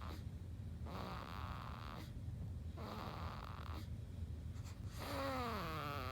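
A baby snoring in sleep: noisy snoring breaths about every two seconds. Near the end comes a longer pitched sound that slides down and then holds.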